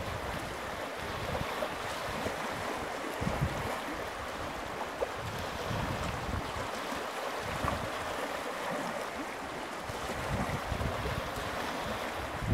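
Small lake waves lapping and splashing against rocks at a stony shoreline, with wind gusting on the microphone as an uneven low rumble.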